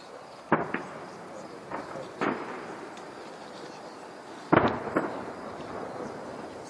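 Fireworks shells bursting in a series of sharp bangs, each ringing on briefly. Two come close together about half a second in, one a little after two seconds, and the loudest about four and a half seconds in, followed by one more half a second later.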